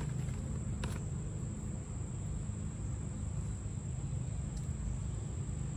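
Outdoor background: a steady high-pitched insect trill runs over a low rumble, with one faint click about a second in.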